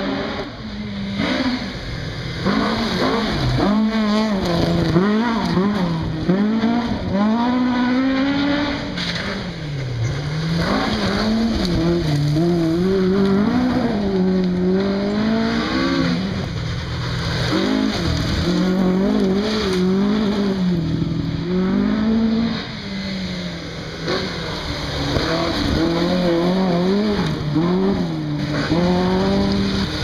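Rally car engines revving hard and dropping back again and again through gear changes on a gravel stage, with a steady hiss of gravel under the tyres.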